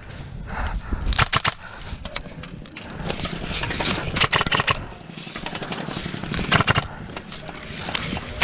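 Airsoft guns firing in short rapid bursts of sharp clicks, three times, about a second in, around the middle and near the end, over rustling and movement noise on the microphone.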